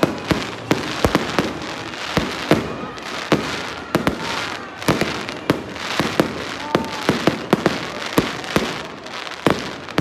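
Fireworks display: a rapid, irregular barrage of sharp bangs, several a second, over a continuous crackling hiss.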